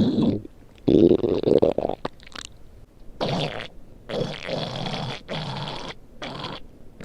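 A person's stomach growling in a string of irregular rumbles with short pauses between them. The longest and loudest comes about a second in, and shorter ones follow from about three seconds on.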